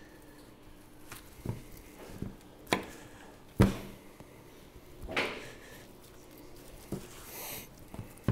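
Knife and meat being handled on a cutting board while a slab of dry-aged beef is trimmed: a handful of scattered soft taps and knocks, the loudest about three and a half seconds in, with the meat being turned over near the end.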